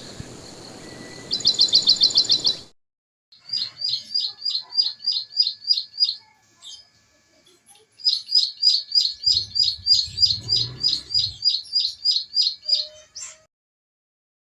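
Songbird calling in fast runs of sharp, evenly repeated chirps, about four a second. A short burst comes at the start, then a run from about three to six seconds in, and a longer run from about eight to thirteen seconds, each ending abruptly as the recording cuts.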